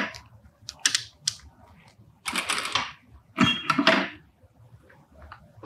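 Light mechanical clicks, then two short half-second bursts of whirring and rustling from work at an industrial straight-stitch sewing machine, as the fabric and thread are set up for topstitching.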